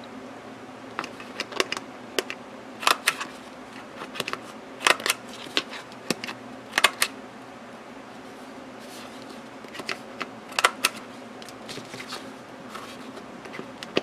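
A 1/4-inch corner rounder punch clicking as it cuts the corners of a thin plastic cutting-mat sheet. Sharp clicks come every second or two, often two in quick succession.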